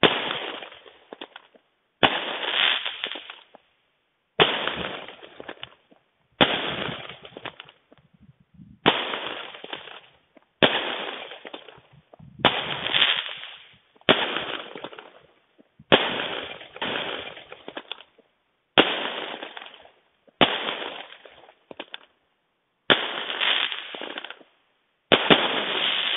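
Fireworks going off in a steady series: a sharp bang about every two seconds, about a dozen in all, each trailing off in a second or so of crackling.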